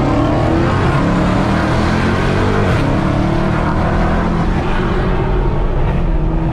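Dodge Hellcat's supercharged V8 at full throttle, heard from inside the cabin as the car accelerates hard. The engine note climbs in pitch, breaks briefly for an upshift about three seconds in, then climbs again.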